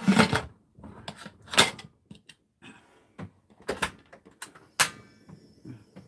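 Pressure cooker lid being fitted and locked shut: a scraping rattle at first, then a string of separate sharp clicks and clanks of metal against metal.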